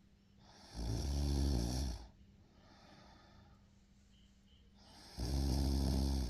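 A boy snoring: two loud snores, each just over a second long, about four seconds apart.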